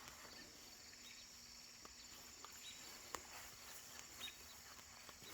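Near silence: faint outdoor ambience with insects chirping high and steady, and a few faint ticks.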